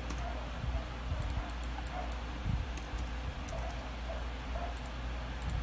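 Scattered computer keyboard key clicks as a password is typed in, over a steady low electrical hum. A few faint, short squeaky sounds come in between the clicks.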